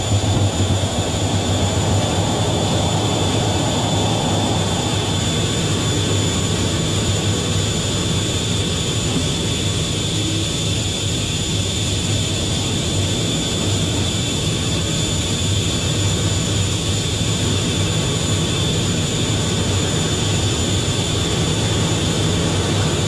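Fighter jet's engines running steadily, heard from inside the cockpit: a constant high whine over a low drone.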